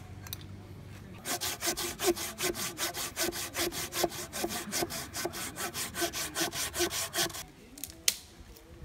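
Folding hand saw cutting into a log, quick even back-and-forth strokes that stop about seven seconds in. A single sharp click follows near the end.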